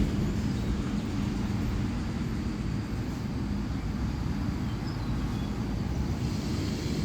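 Steady low outdoor rumble of vehicle-type background noise, with a low steady hum that fades out about two to three seconds in.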